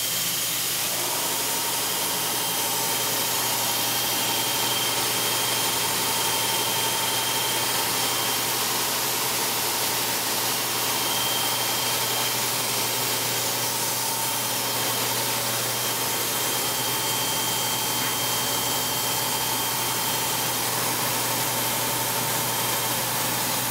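Steady running noise of shop machinery: an even hiss over a low hum, with a steady high whine and a second, lower whine that sets in about a second in.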